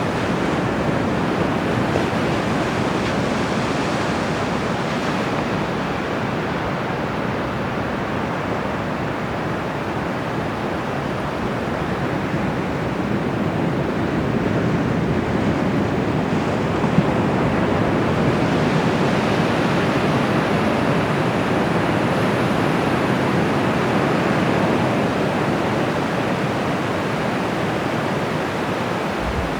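Bay of Bengal surf breaking and washing on the shore: a steady rushing that swells and eases slowly.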